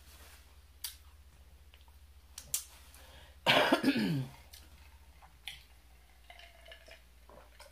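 A woman coughs, a short fit of two or three coughs about halfway through, with a few faint clicks around it.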